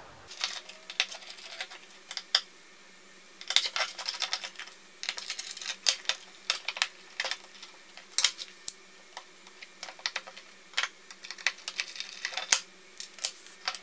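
Irregular light clicks and taps of a small Torx screwdriver working screws out of a 3.5-inch hard drive's metal cover, with the tiny screws being set down on a wooden tabletop.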